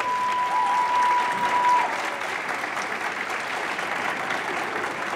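Spectators applauding, with a steady high whistle held over the clapping for about the first two seconds; the clapping then goes on evenly.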